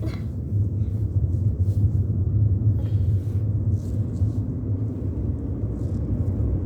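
Steady low rumble of a car's engine and road noise, heard inside the moving car's cabin.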